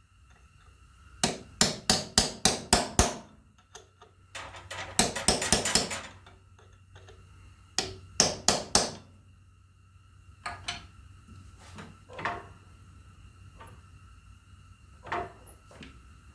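Hammer driving a punch against fold-over lock tabs to bend them down on the bolts, a metal-on-metal job. A quick run of about seven sharp taps comes first, then a denser flurry, then about four more blows, and after that a few lighter, spaced taps.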